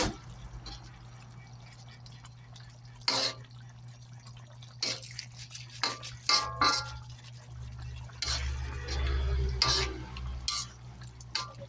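Utensil stirring food in a pan, knocking against the pan about half a dozen times with one short ringing clink, over a steady low hum.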